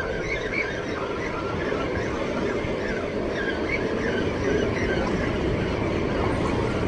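Steady roar of water pouring through the dam's open spillway gates and churning into whitewater below.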